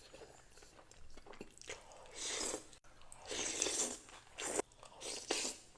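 Close-miked chewing and crunching of fried crab rangoons: several irregular crunchy bites and chews, the longest about two to four seconds in, with shorter ones near the end.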